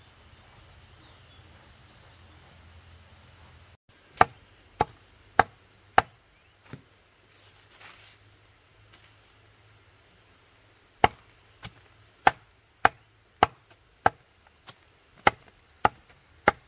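A large knife chopping on a wooden board with sharp, evenly spaced knocks about every 0.6 s: four in a row about four seconds in, a short pause, then a steady run of about ten. Before the chopping there is only a low, steady outdoor background.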